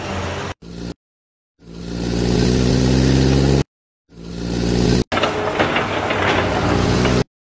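Added engine sound effects for a toy construction loader: short clips of a heavy engine running and building up, each cut off abruptly with dead silence between them. About a second and a half in, one clip swells and holds steady for two seconds. Another starts about four seconds in and runs on with rattling clatter until it cuts out just before the end.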